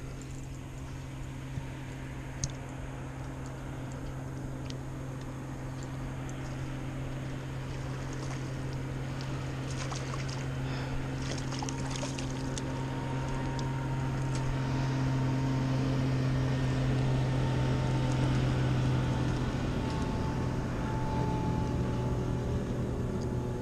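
Motorboat engine droning steadily on the water, growing louder through the middle and easing off near the end as it passes. A few small splashes near the middle as a fish is let back into the water by hand.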